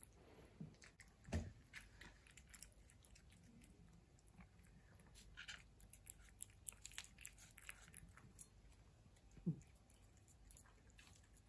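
Two cats chewing food from their bowls: faint, scattered wet clicks of chewing, with a soft thump about a second in and another near the end.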